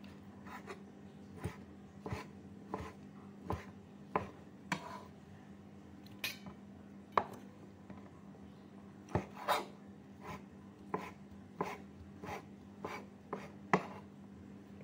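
A cleaver cutting soft vegetarian chicken on a thick wooden chopping block: sharp knocks of the blade meeting the wood at an uneven pace, about one or two a second. A low steady hum sits underneath.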